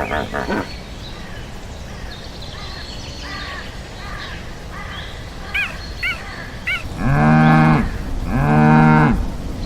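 Cow mooing twice, two long calls of about a second each, the second ending just before the close. Before them, a low outdoor ambience with a few short bird chirps.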